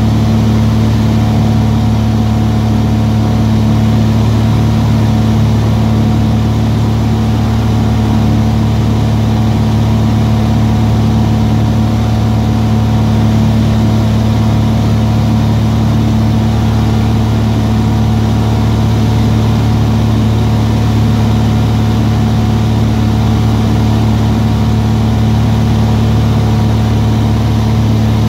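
Light aircraft's engine and propeller droning steadily at cruise, heard loud from inside the cabin, with a deep even hum and no change in pitch.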